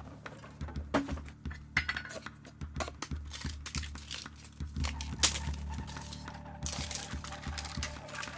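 Small metal clinks, taps and scrapes as a gas-canister camping stove is handled and assembled and a metal pot is set on it, with a few louder knocks. A steady hiss comes in near the end.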